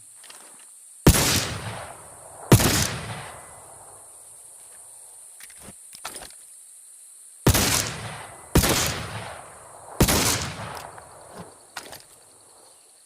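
Revolving triple-barrel flintlock pistol fired five times: two shots about a second and a half apart, a pause, then three more about a second apart, each report ringing off for about a second. Faint clicks come between the shots.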